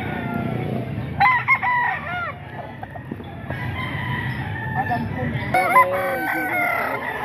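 Gamecock roosters crowing: one loud crow about a second in and another near the end, over steady low background noise.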